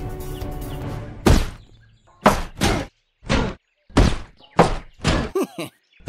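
Cartoon impact sound effects: a heavy thunk about a second in, then a run of shorter knocks and thuds, with music in the opening second.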